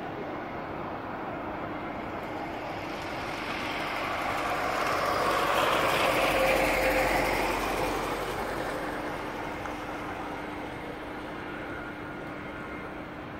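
Jet engines of a twin-engine airliner running as it moves away along the runway. The engine noise swells to its loudest about six seconds in, then fades.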